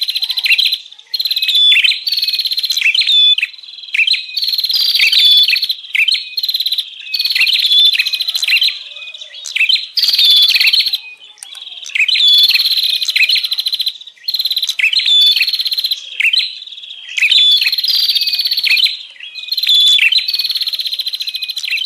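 Prenjak birds calling in noisy, rapid, high-pitched chattering bursts. Each burst lasts about a second and repeats with short breaks, over and over: a looped lure call of agitated wild prenjak.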